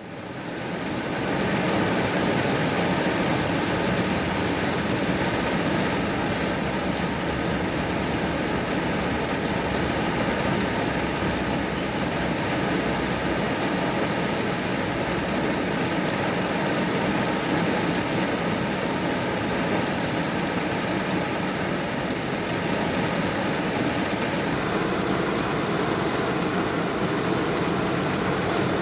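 Heavy rain falling steadily, an even hiss that fades in over the first second or two. A faint steady tone sits in the background and stops about 24 seconds in.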